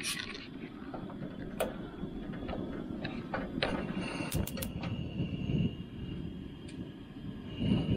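Coleman camp stove's gas burner running with a steady low rush, with a few sharp metal clinks as a stainless steel jug is set and shifted on the pot stand. A faint, thin, steady high tone joins about halfway through.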